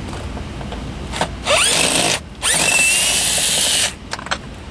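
Power drill/driver with an 8 mm socket spinning a console bolt out. It runs twice, briefly at about a second and a half in and then longer for about a second and a half. Each run rises in pitch as the motor spins up.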